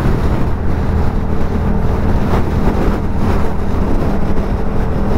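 Yamaha MT-07's 689 cc parallel-twin engine, fitted with an aftermarket Dominator exhaust, running steadily at motorway cruising speed, with wind and road noise from the ride.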